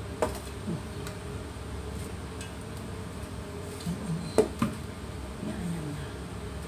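A metal plate clinking against hard kitchen surfaces as it is handled: a sharp clink just after the start and two close together about four and a half seconds in, over a steady low background hum.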